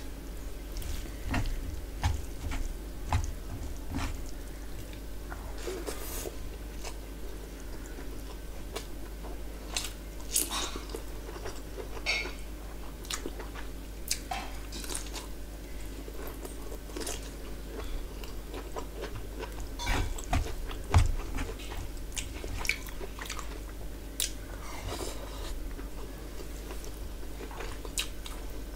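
Close-miked ASMR eating sounds: a person chewing and biting into rice and curry eaten by hand, with many short wet clicks and smacks, the loudest about two-thirds of the way through.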